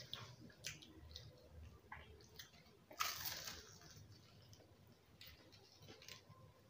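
Kachori being bitten and chewed: one crunch as the pastry is bitten about three seconds in, with faint chewing and mouth clicks around it.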